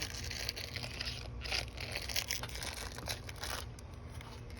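Irregular crinkling and rustling of something being handled, over a steady low hum.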